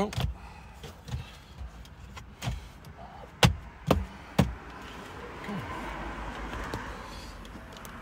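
Three sharp plastic clicks in quick succession, a little over three seconds in, from the dash switch panel as it is pressed and snapped into the lower dash, with a few lighter knocks before them. Soft rustling follows.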